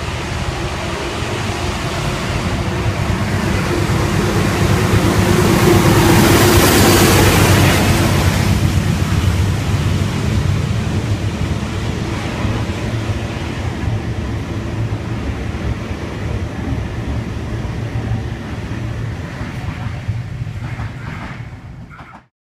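Diesel-hauled Waratah double-deck train set passing through a station platform close by. The locomotive's engine sound builds to a peak about six to eight seconds in. It is followed by the steady rumble and wheel noise of the towed Waratah carriages rolling past, which cuts off suddenly near the end.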